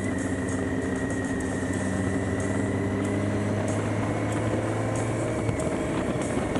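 BMW K1600 GTL's inline-six engine running steadily as the motorcycle rides along, with wind and road noise.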